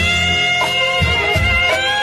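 Instrumental passage of a Hindi film-song karaoke backing track, with no singing: held melody lines over a bass that strikes about every two-thirds of a second.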